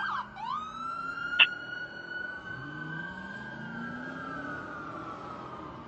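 Fire engine siren breaking off a fast yelp, winding up into a long wail that falls slowly in pitch. A short, sharp blip about a second and a half in is the loudest sound. Underneath, a low engine note rises twice as the truck accelerates.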